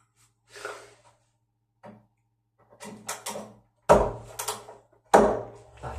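Wooden door and its loose handle knocking and clattering, a few small clicks and rattles, then two heavy thuds about four and five seconds in.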